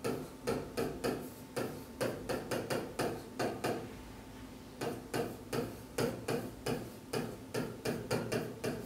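Pen tapping and scraping on the hard surface of a display screen while words are handwritten on it: a quick run of clicks, about three a second, breaking off for about a second near the middle before going on.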